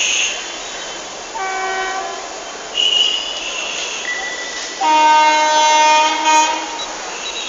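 Horn of a WAP-4 electric locomotive sounding twice: a short, higher honk about a second and a half in, then a longer, louder, lower honk of nearly two seconds about five seconds in, over the steady noise of the running train.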